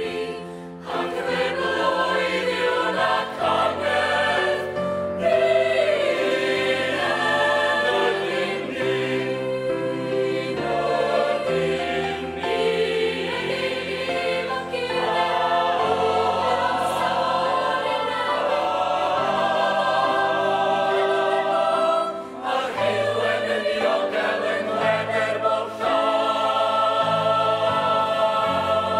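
Mixed choir of young men and women singing a Welsh song in harmony, holding long chords phrase by phrase, with short breaks between phrases about a second in and again near 22 seconds.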